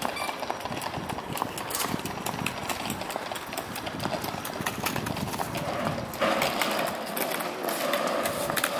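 Footsteps on stone paving: a steady walking pace of hard shoe strikes.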